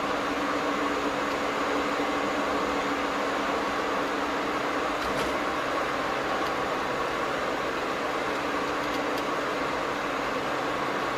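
Steady road and engine noise of a car driving at cruising speed, heard from inside the cabin.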